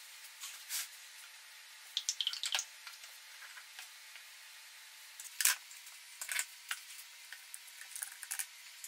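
Scattered light taps and clicks as glued plywood pads are pressed into place on a plywood gun vise and a bar clamp is fitted over them, with the sharpest knock about halfway through. A faint steady hiss lies underneath.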